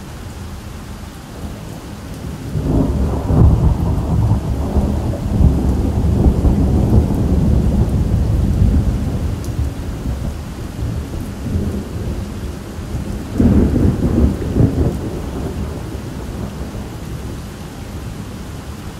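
Thunder rolling over steady rain: a long low rumble starts about two and a half seconds in and slowly fades, then a second peal rumbles up about halfway through and dies away.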